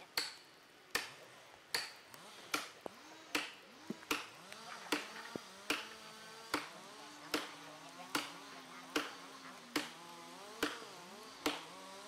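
Steady hammering, about fifteen sharp strikes at an even beat of a little over one a second: a faller pounding with a long-handled axe or sledge at the cut in a big tree's trunk, as in driving a felling wedge. A faint wavering hum runs underneath.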